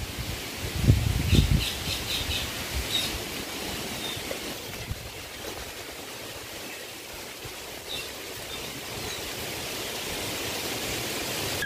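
A few dull knocks about a second in as a clay pot is set down on the stones of an outdoor wood-fire hearth, over a steady rushing hiss, with birds chirping briefly a few times.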